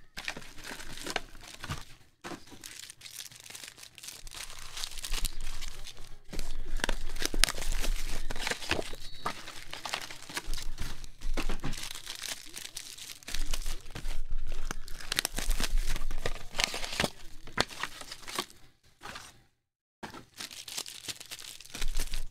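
Foil-wrapped trading-card packs crinkling and rustling in irregular bursts as they are handled and pulled from an opened cardboard hobby box, with a brief pause near the end.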